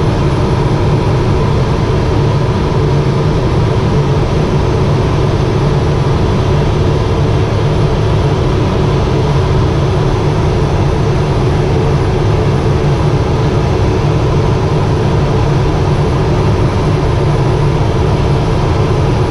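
Steady drone of a Cessna P210 Silver Eagle's Rolls-Royce turboprop engine and propeller, heard inside the cockpit with the aircraft on the ground, with a few steady tones running through it.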